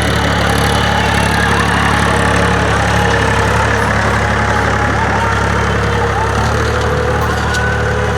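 Powertrac Euro 45 tractor's diesel engine running steadily, its note shifting slightly about six and a half seconds in.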